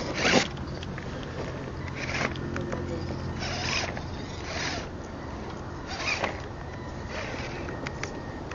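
Radio-controlled rock crawler's electric drive humming steadily as it works over a rock, with about half a dozen short scraping noises at uneven intervals.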